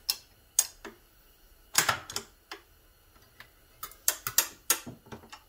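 Sharp, irregular metallic clicks and clinks from small transmission parts being handled and set down on the workbench, bunched about two seconds in and again near the end.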